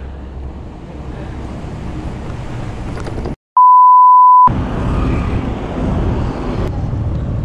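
Steady road and traffic noise, broken about three and a half seconds in by a brief dropout and then a loud, pure, steady beep lasting about a second: an edited-in censor bleep.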